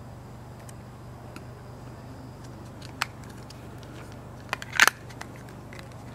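Light clicks and taps of the plastic Apple EarPods case being handled, with one sharp click halfway through and a quick run of louder clicks near the end as the case is put aside, over a steady low hum.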